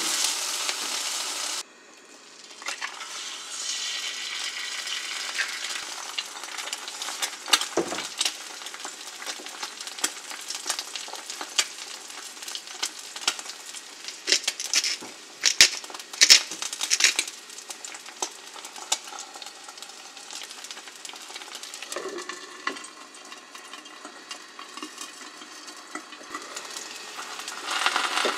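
Tomato slices sizzling in a frying pan, then, after the sound drops about two seconds in, a fried egg sizzling and crackling in the pan. A dense run of sharp clicks sits in the middle.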